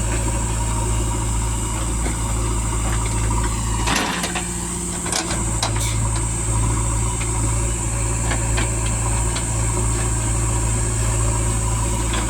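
Backhoe loader's diesel engine running steadily, its low note shifting for about a second around four seconds in, with a few sharp knocks.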